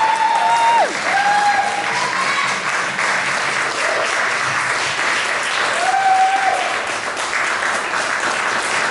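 Audience applauding steadily after a performance, with a few short cheers rising above the clapping at the start, at about a second and a half, and again about six seconds in.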